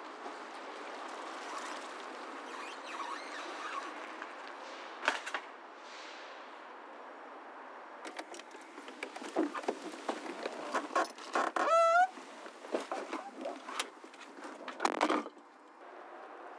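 Steady outdoor hiss, then a run of sharp clicks and knocks from handling inside a parked car, with one short rising tone about twelve seconds in. The clicks stop about a second before the end.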